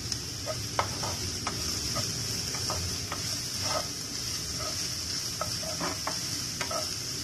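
Chopped onion, garlic and grated carrot sizzling in oil in a nonstick pan, with a steady hiss. A wooden spatula stirs them, giving short, irregular taps and scrapes against the pan.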